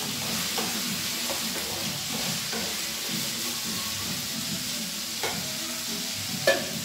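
Cubed potatoes frying in mustard oil in a wok: a steady sizzle with the scraping of a wooden spatula stirring them, and one sharper knock near the end.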